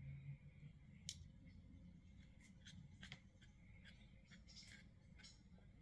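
Near silence with faint scattered clicks and small handling noises as a thin metal headband and a tube of glue are handled, while glue is spread along the headband.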